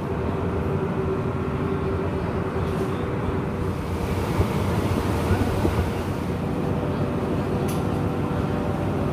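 Tour boat's engine running steadily, a low hum with a rumble, heard on board.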